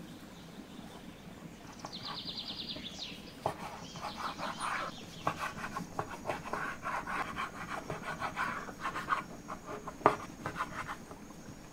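Rapid, irregular rubbing and scratching, beginning about two seconds in and thickening into dense strokes from about three seconds on, with a few sharper clicks.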